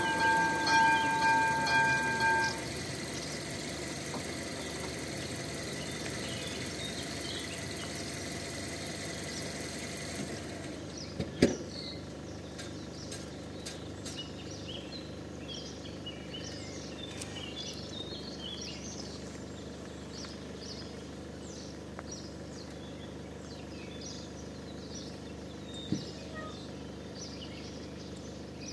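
Level-crossing electronic warning bell ringing in a pulsing tone while the barriers come down; it cuts off about two and a half seconds in. After that, birds chirp over a steady outdoor background, broken by a sharp click about eleven seconds in and another near the end.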